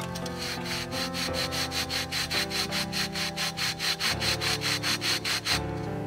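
Quick back-and-forth rubbing, about five even strokes a second, of hands on a paper disc pressed onto a wire fan guard; it stops about half a second before the end. Background music plays underneath.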